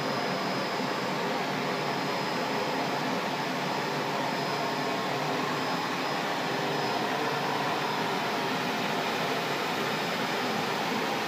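Circular knitting machine for leggings running: a steady mechanical whir with a faint high-pitched tone held throughout.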